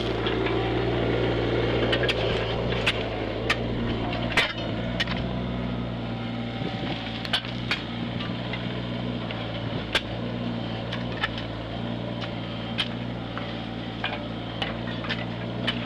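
An engine running steadily at an even, low pitch, with scattered sharp clicks and knocks over it.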